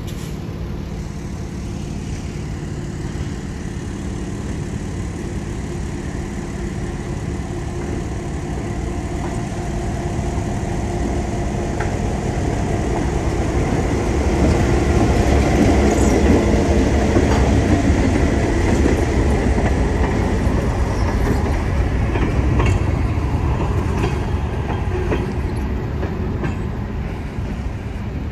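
An EMD GP9RM diesel-electric locomotive passing slowly with a covered hopper car. Its diesel engine rumbles steadily, growing louder as it comes up, loudest as it passes about halfway through, then fading as it moves away, with a few sharp wheel clicks over the rail joints.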